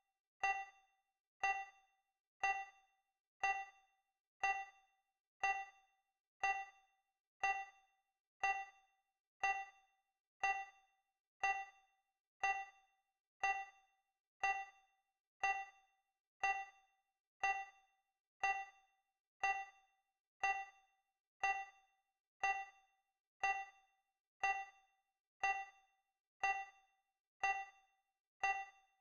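Digital countdown timer sound effect: a short pitched ding once every second, each fading quickly.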